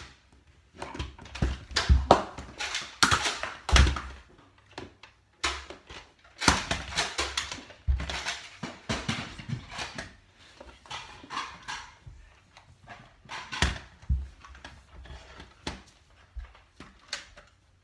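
Nerf foam-dart blasters firing and being primed, with darts thudding against furniture: a scattered, irregular run of sharp pops, clicks and thuds.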